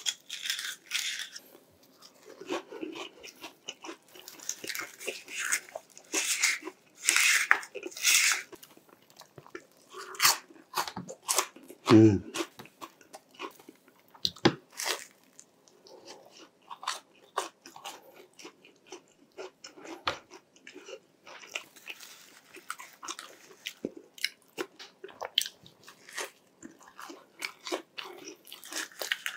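Close-miked eating of crispy deep-fried food: irregular crunching bites of a breaded chicken cutlet and a fried twisted doughnut, with chewing between. The crunches are loudest and thickest in the first several seconds and lighter and sparser afterwards.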